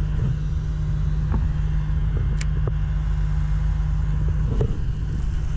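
Steady low rumble of wind buffeting the body-mounted camera's microphone, with a few faint clicks.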